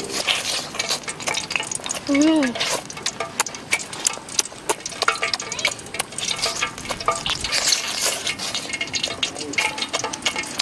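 Close-up eating sounds of roasted chicken being bitten and chewed: a dense, irregular crackle of crunching and mouth clicks. A short hummed 'mm' comes about two seconds in.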